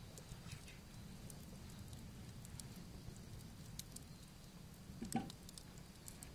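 Wood fire burning: scattered small crackles and snaps over a low steady rumble, with one louder knock about five seconds in.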